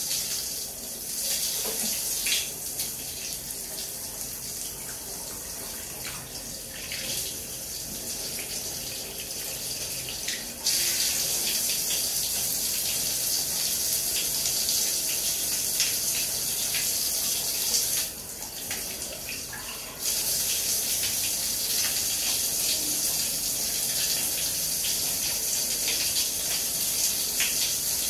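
Shower water running and spraying onto a tiled floor, a steady hiss that suddenly gets louder about a third of the way through, dips for about two seconds, then comes back just as loud.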